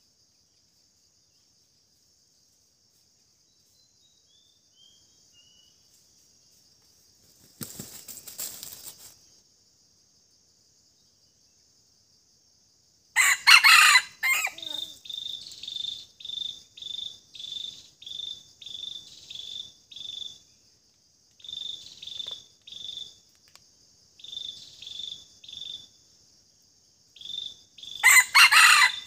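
Red junglefowl rooster crowing twice, a short loud crow about halfway through and another near the end. Behind it runs a steady high insect buzz and a cricket chirping in an even rhythm.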